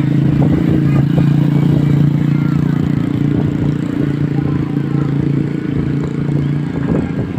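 A bus's diesel engine running with a steady low hum that drops away about a second before the end.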